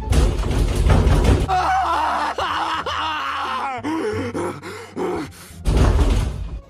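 A person groaning and moaning in drawn-out, wavering cries over background music, with loud bursts of noise at the start and near the end.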